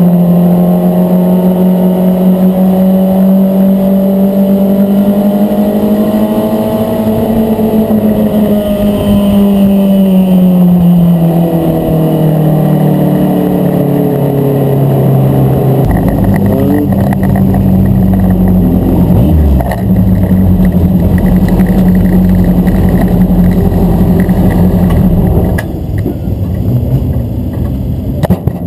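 Mini stock race car's engine heard from inside the cockpit, running hard at high revs. Its pitch sags slowly partway through, then it runs at a steadier, lower speed with more rumble, and it turns quieter near the end.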